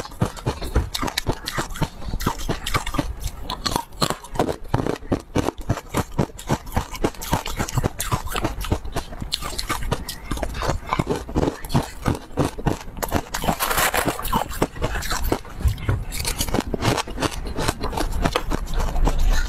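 Frost-covered ice chunks being bitten and crunched close to a clip-on microphone: a dense, unbroken run of crackles and snaps as the ice breaks between the teeth.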